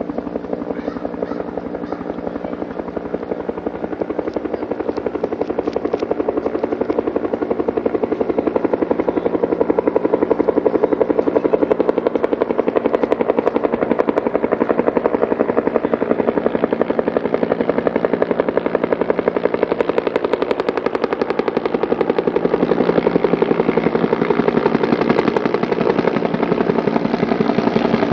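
Helicopter's rotor beating with a rapid, steady chop over its turbine rumble, growing louder over the first ten seconds or so, as when a helicopter comes in to land.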